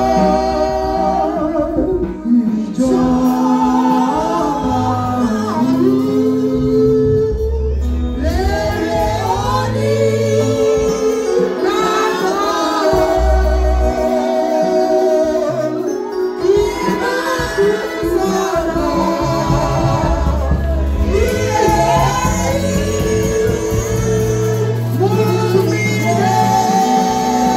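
Gospel song: a woman's voice singing over an instrumental backing with a held bass line.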